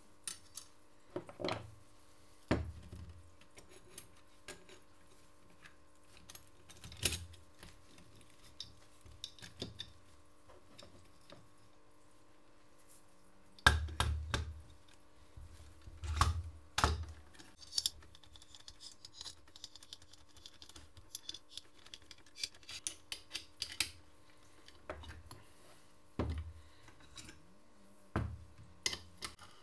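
Metal clutch parts of a moped engine being handled, fitted together and set down on a wooden workbench: scattered clicks and clinks, with a few heavier knocks about halfway through. A faint steady hum runs underneath.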